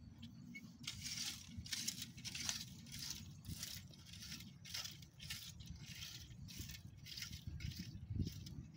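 Garden rake scraping and dragging through dry, stony soil in quick repeated strokes, about two a second.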